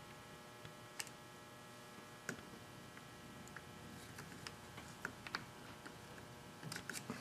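Faint, scattered small clicks and taps of metal parts being handled as fingers work at a two-stroke trimmer engine's piston and wrist pin, with a quicker cluster of clicks near the end.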